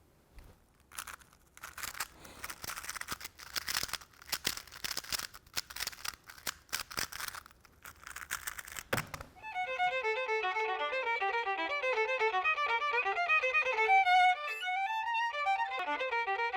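A Rubik's cube being turned rapidly: a dense, irregular run of plastic clicks and rattles for about eight seconds. It stops abruptly, and a solo violin takes over, playing a fast passage of quick notes.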